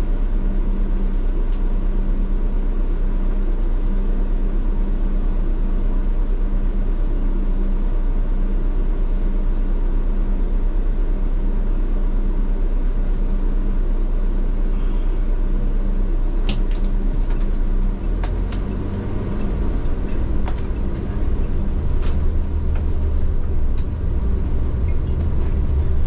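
A bus engine running steadily, heard from the driver's seat as a constant low drone. About two-thirds of the way through, the engine note shifts up in pitch and grows heavier. A few sharp clicks or rattles come around the same point.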